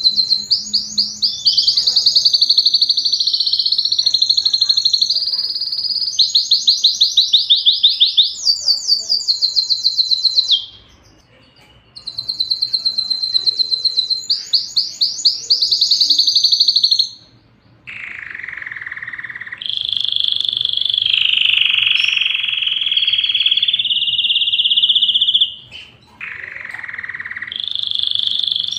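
Domestic canary singing: long, fast trills of rapidly repeated high notes, broken by two short pauses. In the second half come lower, steadier rolling notes.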